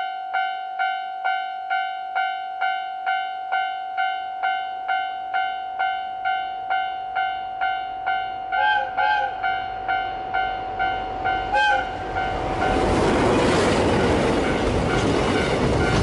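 Japanese level-crossing alarm bell clanging about twice a second. About eight and a half seconds in, a JR Freight DF200 diesel locomotive sounds two short horn blasts, then one more about three seconds later. From about twelve seconds in, the loud, steady rumble and clatter of the locomotive and its container wagons crossing drowns out the bell.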